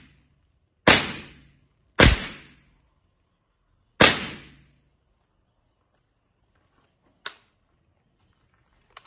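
Three .22 LR rifle shots, fired with expanding hollow-point rounds into a car windshield: two about a second apart, the third two seconds later, each a sharp crack that dies away within half a second. A fainter short crack follows about seven seconds in.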